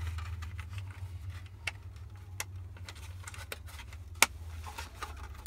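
Plastic clicks and knocks from handling a car's rear AC vent trim panel and pushing its wiring connector onto the bottom of the vent, with a few sharp ticks, the loudest about four seconds in, over a steady low hum.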